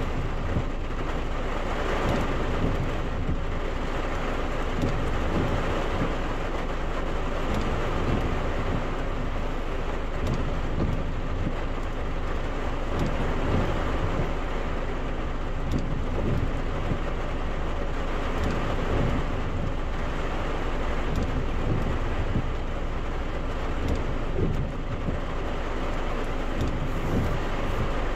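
Heavy rain pattering on a car's roof and windshield, heard from inside the cabin: a steady, dense patter of drops.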